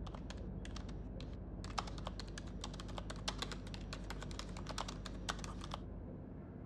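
Typing on a laptop keyboard: a few scattered keystrokes, then a quick, steady run of key clicks that stops nearly a second before the end, over a low steady hum.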